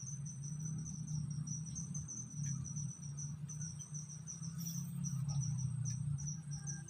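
An insect chirping in a steady, rapid train of short, evenly spaced high-pitched pulses, several a second, over a low steady hum.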